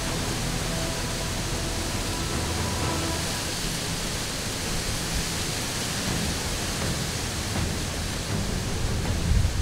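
A steady rushing hiss. A few faint held tones fade out in the first few seconds, and low rumbles come in near the end.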